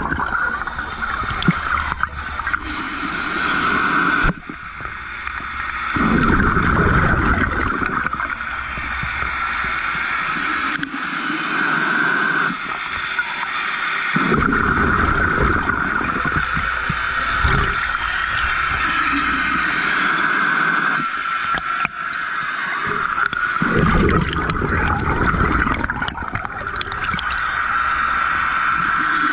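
Scuba diver breathing through a regulator underwater: exhaled bubbles gurgling out in loud bursts about every eight seconds, over a steady hiss.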